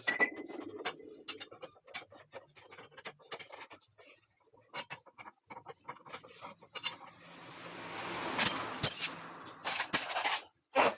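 Hand tools working the bolts of a Honda Vario 110's CVT cover: scattered metal clicks, taps and scraping as the bolts are undone. About seven seconds in, a rushing noise swells for about three seconds and then fades.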